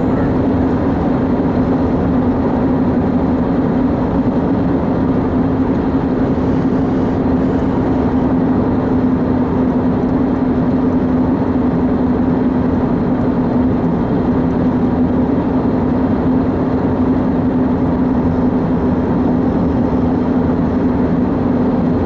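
Steady road and engine noise inside a moving car's cabin, with an even hum that stays at one pitch.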